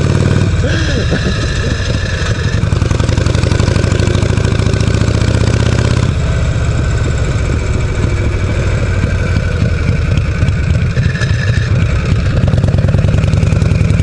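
Harley-Davidson Shovelhead V-twin motorcycle engine running under way, recorded from the rider's seat. The engine note changes abruptly about six seconds in.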